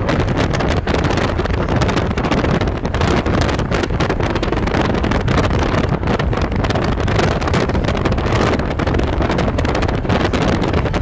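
Wind rushing and buffeting over the microphone, with the road noise of a car travelling at speed on a freeway, steady throughout.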